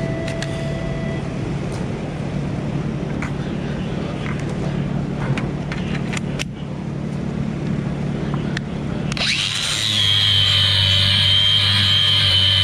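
A steady low hum with a few faint clicks, then about nine seconds in a DeWalt 20V cordless angle grinder starts with a rising whine and settles into a steady high whine as its sanding disc grinds the steel top of a wood stove.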